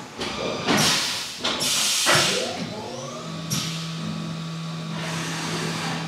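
Haas UMC-750SS five-axis CNC mill restarting from an option stop and changing tools. Several short pneumatic air hisses sound in the first two seconds or so. About two and a half seconds in, the spindle spins up with a rising whine, then settles into a steady hum.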